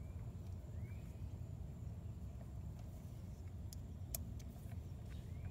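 A few sharp isolated clicks from a socket ratchet being worked on the ignition coil's mounting screws, over a low steady rumble. Two faint short rising chirps, one near the start and one near the end.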